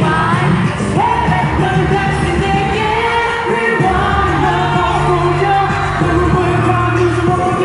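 Live K-pop concert music: male voices singing into microphones over a loud pop backing track, with a steady bass line coming in about halfway through.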